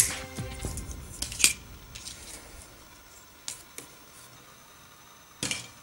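Sharp plastic clicks and snaps from small toy road signs being handled and set on a table: a loud click at the start, then a few brief crackly snaps, the last near the end. Background music fades out within the first second.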